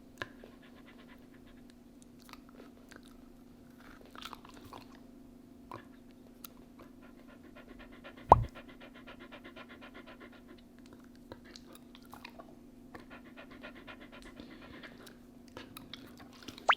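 Shiba Inu panting and chewing, with scattered small clicks and one sharp knock a little past eight seconds in.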